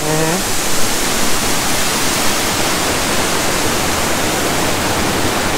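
Steady rush of falling water from a waterfall, an even continuous noise with no change.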